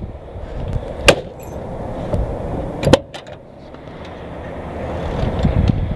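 Pickup truck door being handled: two sharp knocks almost two seconds apart, the second the louder, then a rustling noise that grows toward the end.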